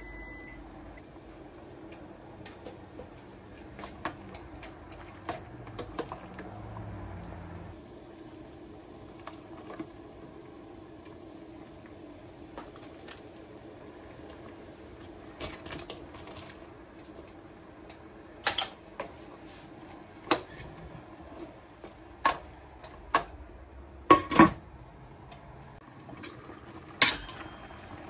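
A pot of water boiling on a stove as green vegetables are blanched in it. In the second half come a series of sharp clinks and knocks of a strainer and utensils against the pot; the loudest is a quick pair about three-quarters of the way through.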